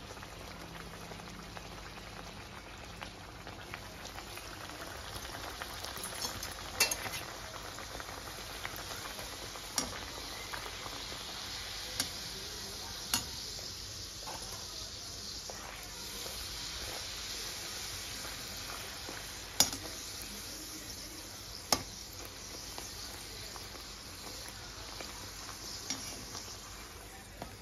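Puris deep-frying in hot oil in an iron kadai: a steady sizzle, broken by several sharp clicks.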